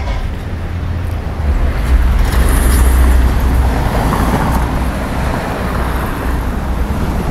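Road traffic on a city street, a steady hum with one vehicle swelling louder a couple of seconds in, over a heavy low rumble.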